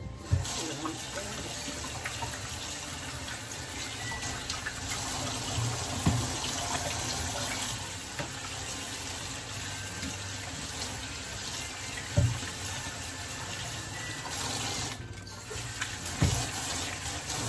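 Kitchen tap running into a stainless-steel sink, the stream splashing over hands held under it. The flow breaks briefly near the end, and a few soft thumps sound about every six seconds.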